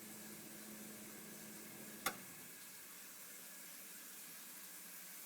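Refrigerator running with a faint steady hum and hiss; about two seconds in there is a single click, and the hum dies away after it, leaving only a soft hiss.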